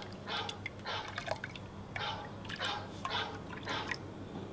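Hibiscus drink (sobolo) scooped up in a plastic cup and poured back into a metal cooking pot, making a series of splashes about every half second as it is mixed to dissolve the sugar.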